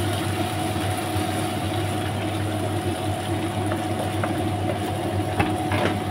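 A steady, even motor hum with a faint higher whine runs throughout. Under it a wooden spatula stirs sautéed anchovies, tomato and boiled eggs in a frying pan, with a couple of light knocks against the pan near the end.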